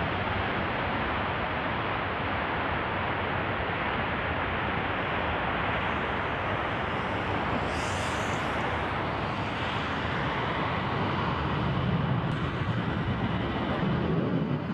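F-15 jet engines at high power as the fighter accelerates down the runway on its takeoff roll: a steady, dense rush that grows deeper and a little louder in the last few seconds.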